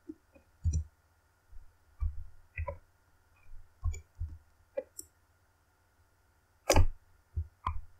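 Irregular clicks and taps of a computer mouse and keyboard, about a dozen scattered presses, the loudest about two-thirds of the way through.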